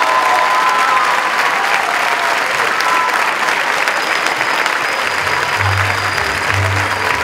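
Audience applauding steadily, with music playing underneath; a low beat comes in about five seconds in.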